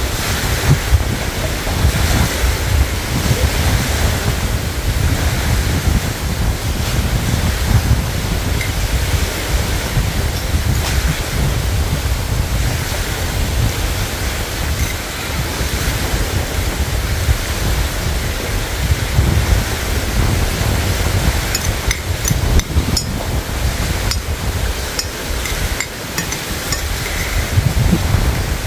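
Wind buffeting the microphone: a steady rushing noise with a heavy, fluctuating low rumble, and a few faint clicks near the end.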